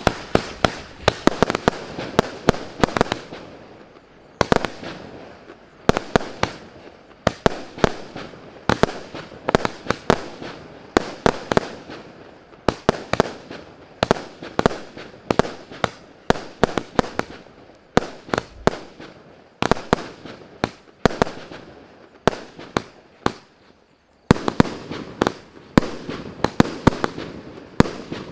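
Maxsem MC125 multi-shot firework cake (88 shots, 20, 25 and 30 mm calibre) firing a long rapid volley, its sharp shots and bursts coming several a second with brief lulls about four and twenty-four seconds in.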